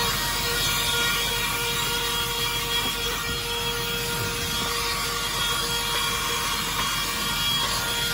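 GoMechanic Proton 6000 handheld car vacuum cleaner running steadily, a constant motor whine over rushing air, as its nozzle sucks dirt off a car floor mat.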